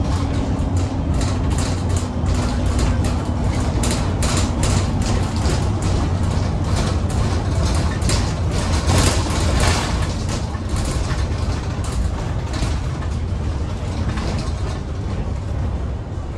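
Alexander Dennis Super Pointer Dart single-deck bus driving at speed, heard from inside at the front: a steady engine and road drone with frequent short rattles through the middle, thickest about nine seconds in.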